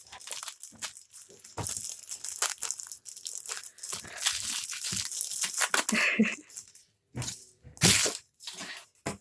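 Blind-pack toy packaging being crinkled and torn open by hand: irregular crackling, with a few louder rips near the end.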